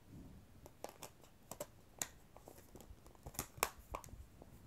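Thin clear plastic Blu-ray cases being handled: a scatter of faint clicks and light knocks as a case is shifted, closed and put down and the next one taken up, with a cluster of sharper clicks about three and a half seconds in.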